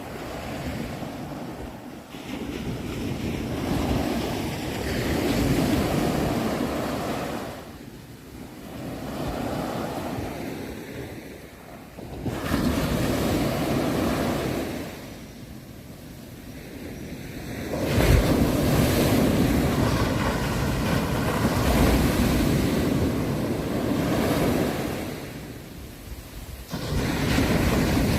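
Ocean surf: waves breaking and washing in, swelling and fading every few seconds, with the biggest surge about two-thirds of the way through.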